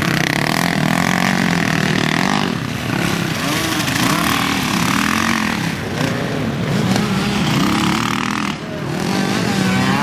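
Dirt bike engine revving up and falling back again and again, its pitch rising and dropping about once a second as the rider works the throttle and passes close by.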